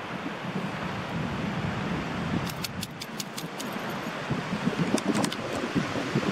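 Wind buffeting the microphone over a steady hiss of small waves on a sandy shore, with two short runs of sharp clicks, one about halfway through and one about five seconds in.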